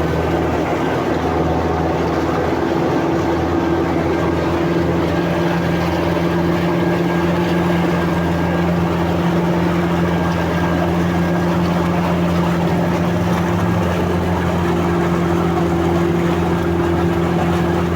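The Toyota 109 hp engine of a Trom-16-tyred amphibious all-terrain vehicle running steadily at constant revs while the vehicle swims, its tyres working like paddle wheels in the water.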